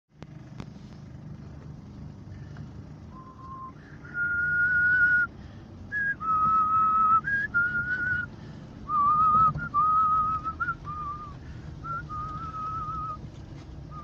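A person whistling a slow tune in held, slightly wavering notes, over the steady low rumble of a vehicle driving on a dirt track, heard from inside the cab.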